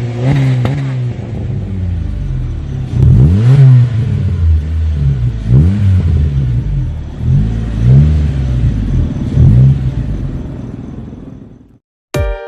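Engine running through an aftermarket exhaust with an offset centre muffler, the throttle blipped repeatedly so the note rises and falls about eight times over a steady idle. The sound fades out near the end, and a burst of electronic music starts just before the end.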